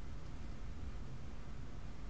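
Steady low hum with faint hiss, unchanging throughout; the soldering itself makes no distinct sound.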